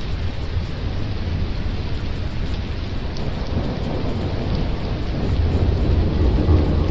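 Steady rain-and-thunder ambience: an even rushing noise over a low rumble, which swells a little about five seconds in.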